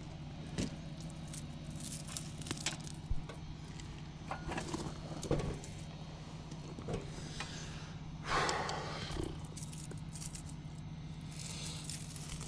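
Hand yard work in overgrown brush: scattered rustles, snaps and scrapes of plants and debris being handled, with a longer rustle about eight seconds in, over a steady low hum.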